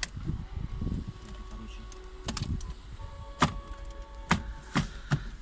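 Handbrake lever of a VAZ 2106 being worked: a series of sharp separate clicks from its ratchet, several of them in the second half.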